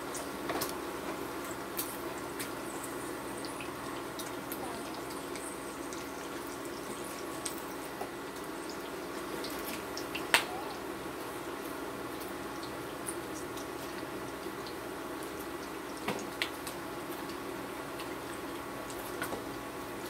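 Bacon sizzling in a frying pan on an induction cooktop: a steady hiss of frying fat with scattered small pops and crackles, and one louder click about ten seconds in.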